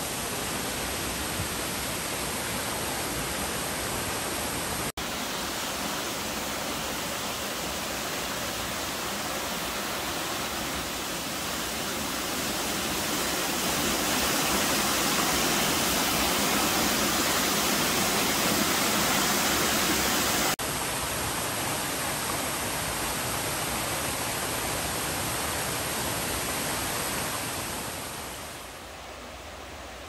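Waterfall: a steady rush of falling water. It changes abruptly about five seconds in and again about twenty seconds in, is louder in between, and drops away near the end.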